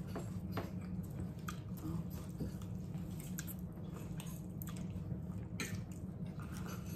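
People eating baked chicken and rice: wet chewing and mouth sounds with scattered sharp clicks, over a steady low hum.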